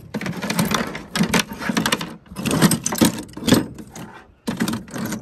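Mixed scrap (brass pipe fittings, wire, plastic valves) clattering and rattling in a plastic bucket as a hand digs through it, in irregular bursts with a brief pause near the end.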